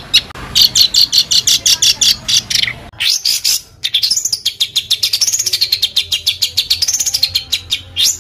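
Songbird singing a harsh, rapid series of high repeated notes, about five a second. Around three seconds in comes a short rising sweep, followed by a faster trill whose pitch swings up and down twice before ending in sharp notes.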